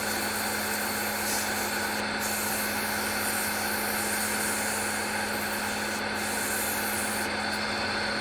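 Wood lathe running with a steady hum while 220-grit sandpaper is held against the spinning wooden ornament, giving an even hiss that breaks briefly a couple of times.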